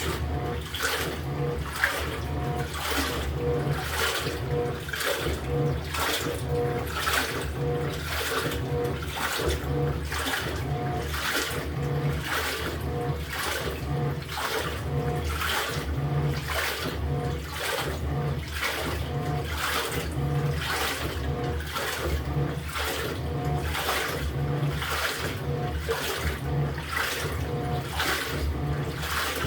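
LG top-load washing machine agitating its load in water: the pulsator reverses back and forth, giving a rhythmic swish and slosh about once a second, each stroke with a low motor hum.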